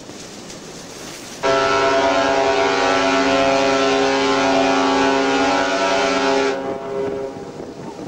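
The SS Norway's ship horn sounding one long, deep blast of about five seconds. It comes in sharply about a second and a half in and cuts off, with wind noise on the microphone before and after.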